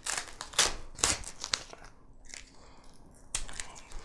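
White paper wrapping crumpled and torn by hand as a knife is unwrapped, irregular crinkling and rustling with a few sharper crackles.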